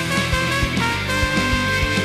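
Background music with a steady beat and sustained horn-like notes.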